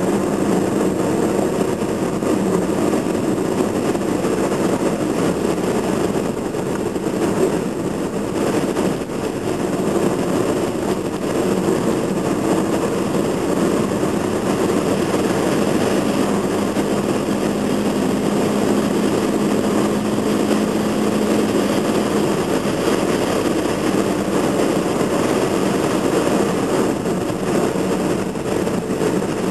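Car engine and tyre noise heard from inside the cabin while driving at a steady speed, a continuous rumble, with a steady hum standing out for a few seconds past the middle.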